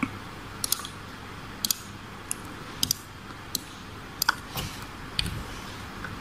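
Computer mouse clicking: about ten sharp, irregularly spaced clicks, many heard as a quick press-and-release pair, over a faint steady hiss.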